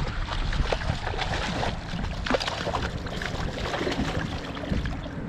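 Water splashing and sloshing in short irregular bursts, typical of a hooked redfish thrashing at the surface as it is brought to the boat.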